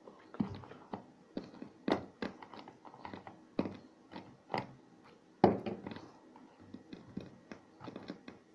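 A run of irregular sharp clicks and knocks, close to the microphone, from handling, with the loudest knock about five and a half seconds in.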